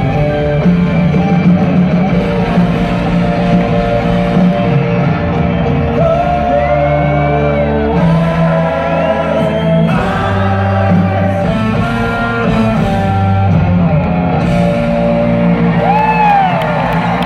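Live rock band playing: a singer's voice sliding between held notes over electric guitar, keyboards and drums, heard through the echo of a large arena.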